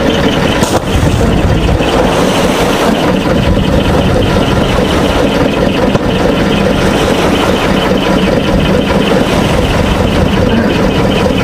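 Fishing boat's engine running steadily and close, with a fine regular ticking in its sound, as the boat moves through the water.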